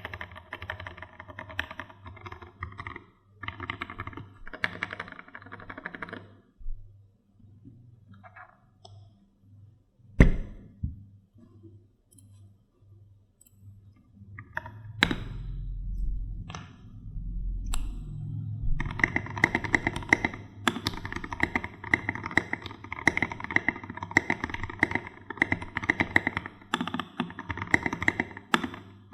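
Typing on a Keydous NJ68 mechanical keyboard with a brass plate and lubed Gateron Black Ink v2 linear switches, with Glorious Panda tactile switches on the space, backspace, enter and shift keys. Bursts of typing give way to scattered single keystrokes with one loud strike about ten seconds in, then fast steady typing for the last ten seconds.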